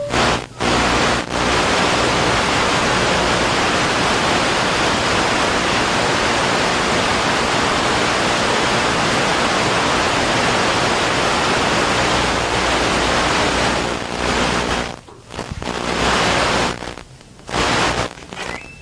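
Loud, steady static hiss in the audio signal with a faint low hum under it, breaking up into choppy bursts and gaps after about fourteen seconds.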